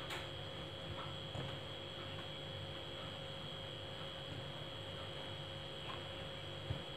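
Steady faint electrical hum with a thin high whine, and a few faint soft ticks from a plastic spoon swirling through thick ice-cream mix in a plastic tub.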